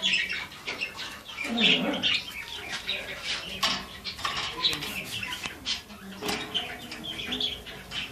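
Many canaries chirping and singing together, with frequent wing flutters and clicks. About a second and a half in there is a short, louder, low voice-like sound.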